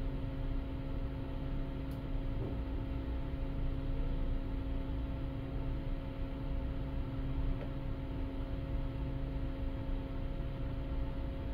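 Steady drone of the car ferry Shirahama-maru's engines and machinery heard on board: a low rumble with a constant hum running through it.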